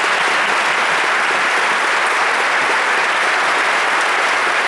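Audience applauding steadily in a large lecture hall.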